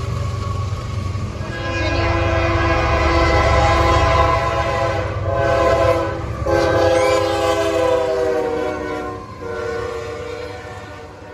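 Freight locomotive's multi-chime air horn sounding a chord in several blasts: a long one, a short one and two more long ones. The pitch sags slightly in the later blasts as it passes. Under the first half runs the low rumble of the locomotive and train.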